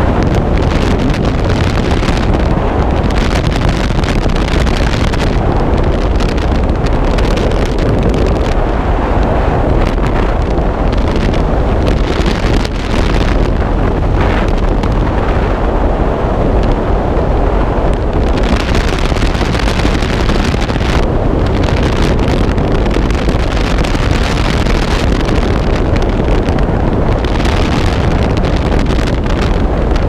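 Loud, steady rush of freefall wind blasting across the microphone of a skydiver's body-worn camera, the hiss swelling and easing every few seconds as the air hits it.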